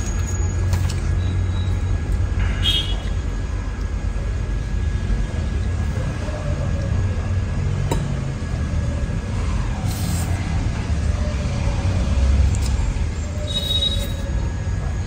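A steady low rumble of background noise, with a few light, short clinks of a fork against a plate.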